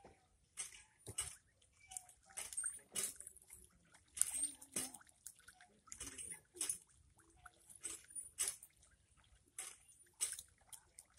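Ducklings dabbling and paddling in shallow muddy water: frequent small, irregular splashes and bill-dabbling sounds, with a few short calls.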